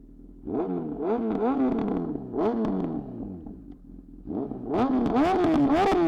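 Honda CB1000R inline-four engine revved through Black Widow headers and a LeoVince carbon slip-on exhaust. Two throttle blips each fall away slowly, then from about four seconds in come repeated quick revs, about two a second.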